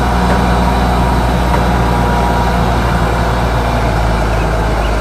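Diesel engine of a Grove RT530E rough-terrain crane running steadily at an even speed, with a deep, constant hum.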